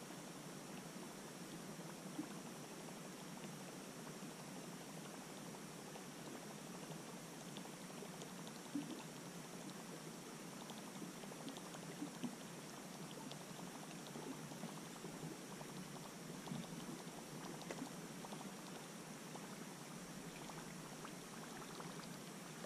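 Faint water lapping and trickling gently against a small boat's hull, with a few small ticks and splashes scattered through it.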